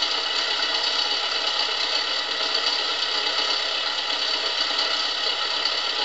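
Recording of a car engine idling with a noisy, worn timing chain that needs a new chain and tensioner. It is a steady mechanical clatter with little bass, played back from a flexi-disc through a small vintage portable record player.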